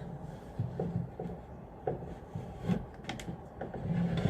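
Scattered clicks, small knocks and rubbing as a door lock is handled and worked loose for removal.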